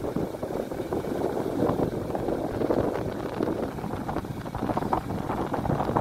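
Wind buffeting the microphone on a moving motorcycle, an uneven rushing noise over the sound of the motorcycle running along the road.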